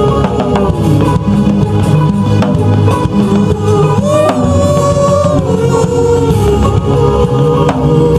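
Live gospel praise music: a drum kit and bass playing a steady groove under a held, gliding melody line.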